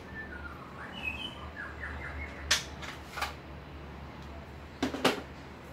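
A few sharp clicks and knocks from hands working at a metal tool cabinet, the loudest a quick double knock near the end. Faint bird chirps in the first couple of seconds over a low steady hum.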